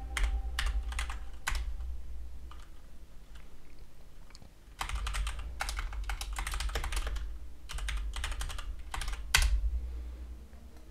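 Typing on a computer keyboard: a few scattered keystrokes, a lull about three seconds in, then quick steady typing from about five seconds in, ending with one louder keystroke.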